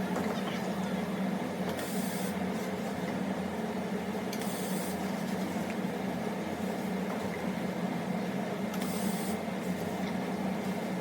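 Welding machine running with a steady hum, and short bursts of hiss every two to four seconds as M8 screws are welded onto lithium battery cells.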